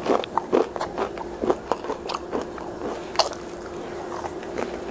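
Close-miked biting and chewing of a crispy breaded fish stick: a quick run of sharp crunches for about three seconds, then softer chewing.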